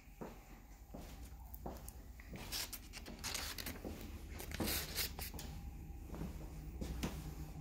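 Footsteps and scattered light knocks in a small room, with two brief rustling scrapes about a third and two thirds of the way through.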